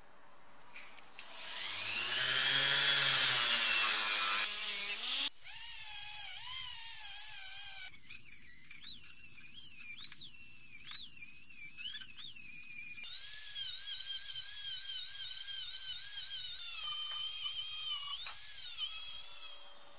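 Handheld rotary tool (Dremel-type) with a small steel wire bit, whining at high speed against a steel CV joint to clean off rust. It spins up about one and a half seconds in, its pitch dips and recovers as the bit is pressed into the metal, and it stops near the end.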